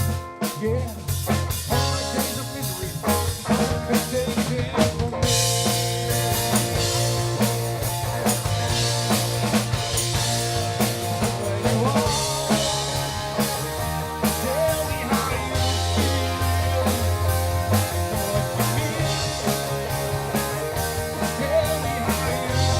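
Live rock band playing an instrumental passage without vocals: drum kit, electric guitar and bass. About five seconds in the cymbals come in and the sound fills out.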